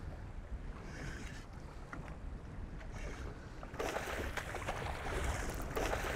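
Wind on the microphone and water lapping around a small boat. About four seconds in, louder splashing starts as a hooked barramundi thrashes at the surface.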